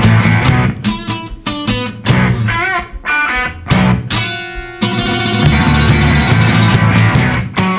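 Electric and acoustic guitars playing a rhythmic chord riff together, as the instrumental intro of a rock song. A wavering bent note sounds about two and a half seconds in, a chord is left ringing around four seconds, and then the strummed rhythm picks up again.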